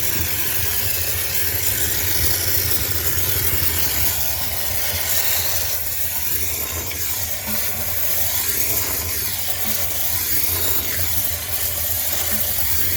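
High-pressure steam cleaner spraying steam: a steady hiss over a constant low machine hum.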